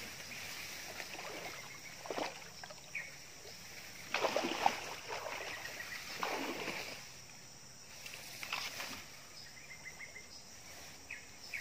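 Several irregular bursts of water splashing and sloshing, mixed with rustling, as someone wades in a shallow stream handling a long green bamboo pole. The loudest burst comes about four seconds in.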